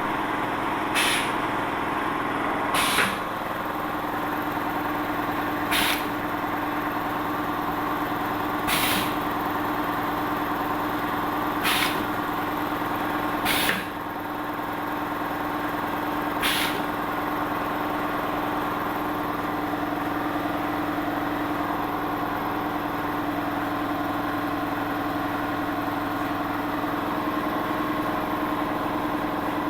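Dish-scrubber welding press running with a steady machine hum. Seven short hisses come roughly every two to three seconds, one per press cycle, and stop about 16 seconds in while the hum carries on.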